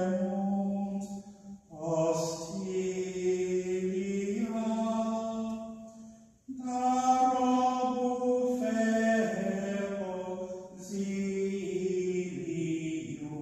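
A low-pitched voice singing a slow sacred chant in long, held notes, in phrases of a few seconds that break off briefly about two seconds in, near the middle, and around eleven seconds.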